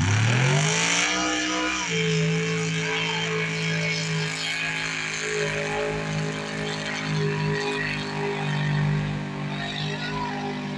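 A pickup truck's engine revving hard on launch, its pitch climbing steeply over the first two seconds, then held at high revs as the truck ploughs through a mud pit.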